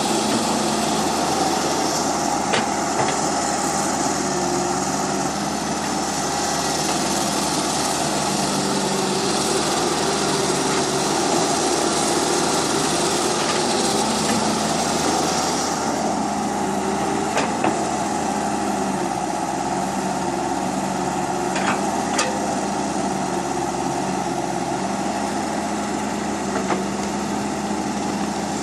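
Small electric motors of remote-control toy construction vehicles whirring steadily as they work in sand, with a few short clicks.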